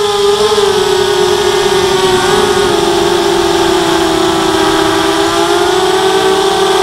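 ZMR 250 racing quadcopter in flight, its four RCTimer 2300kv brushless motors spinning 5x3 propellers in a steady high whine that wavers with the throttle, dropping a little in pitch about three seconds in. Heard from the quad's own onboard camera.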